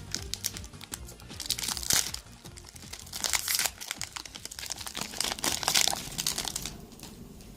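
Foil wrapper of a Pokémon trading card booster pack crinkling as it is handled and opened, in several spells of rustling about a second and a half, three and a half, and five and a half seconds in.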